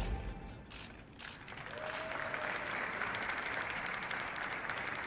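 The pop song's music cuts off at the start, then audience applause rises about a second in and holds steady.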